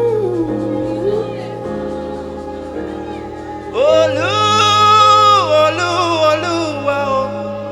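Gospel worship music: steady sustained chords, with a singer's wordless melodic line. About four seconds in, the voice holds a long, loud high note that slides down at its end.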